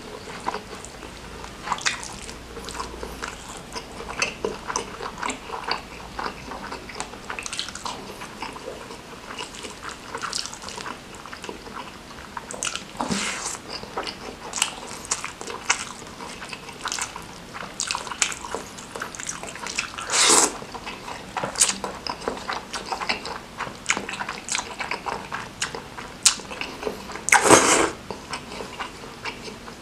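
Close-up eating sounds of a person chewing a mouthful of rice and noodles eaten by hand, with many small wet smacks and clicks from the lips and mouth. Two louder, longer sounds come about two-thirds of the way in and near the end.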